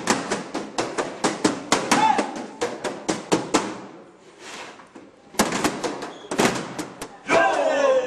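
Plastic beer crates struck and knocked in a group percussion routine: sharp hits at about four a second, stopping for about a second and a half in the middle, then resuming. A voice calls out near the end.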